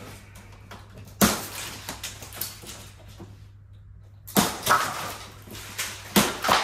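Tensioned plastic packing straps on a cardboard shipping box being cut through with a knife, each one giving a sharp snap as it lets go. There is one snap about a second in, then several more with rustling of the loose straps in the second half.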